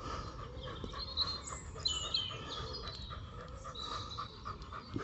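A dog panting, with birds chirping in the background.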